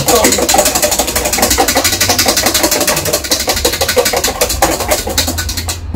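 Electric hand mixer running fast, beating egg whites and sugar into a meringue that is almost stiff. It cuts off suddenly just before the end.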